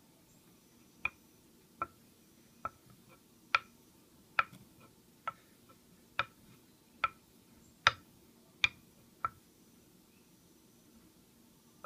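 Knife blade being stropped by hand on a paddle strop to polish it, with a sharp click at each stroke, about eleven clicks evenly spaced a little under a second apart, stopping about nine seconds in.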